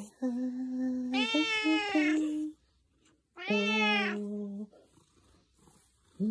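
Tuxedo cat meowing in long, drawn-out calls, two main stretches with a short pause between, as if singing.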